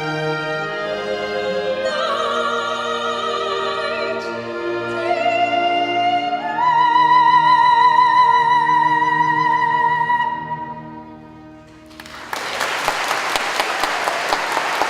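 A singer with vibrato and instrumental accompaniment in a classical, operatic style, climbing to a long held high note that fades out about two-thirds of the way through. After a short hush, the audience breaks into applause.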